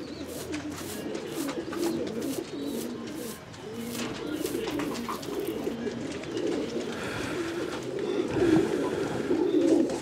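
Domestic tumbler pigeons cooing continuously, a low rippling warble. Faint rapid ticks come about three or four times a second in the first half.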